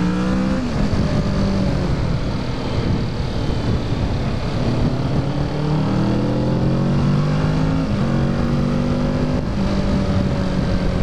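2017 Kawasaki Ninja 650's parallel-twin engine on its stock exhaust, heard from the bike under way. The revs climb and fall: the pitch drops about half a second in, rises again through the middle, and falls back around eight seconds in. A steady rush of wind noise runs beneath it.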